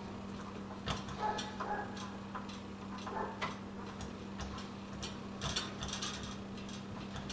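Scattered small clicks and light clatter of metal deadbolt parts being handled, with a few brief rustles and a steady low hum underneath.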